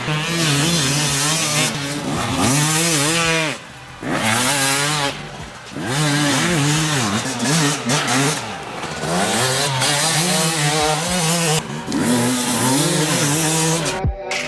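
250cc two-stroke dirt bike engine revving up and down over and over, its pitch rising and falling, with a couple of short breaks. It cuts off sharply near the end.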